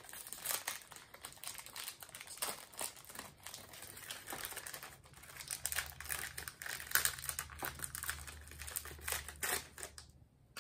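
Plastic ration food packet crinkling and crackling in the hands as it is worked and torn open, in quick irregular crackles.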